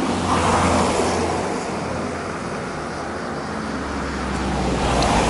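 Road traffic passing by, with engine hum and tyre noise swelling twice, once early and again near the end.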